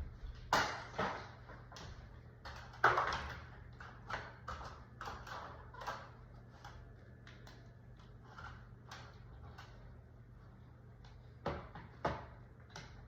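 Irregular small clicks, taps and scrapes of hands handling a detector mounting plate and wiring. The sharpest come about half a second, one second and three seconds in, and twice more near the end, over a steady low hum.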